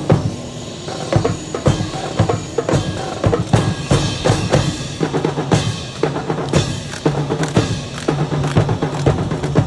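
Rifle drill team handling wooden-stocked drill rifles in unison: a run of sharp, irregular clacks and thuds as hands slap the stocks and rifle butts strike the tarmac, over a low steady hum.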